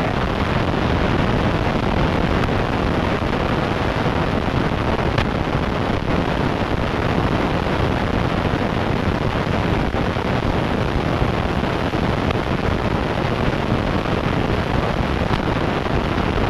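Steady, loud rushing noise with no pitch to it.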